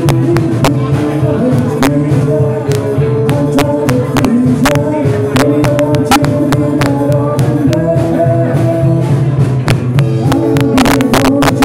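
A live band playing with electric guitars and drums, with a steady, driving beat.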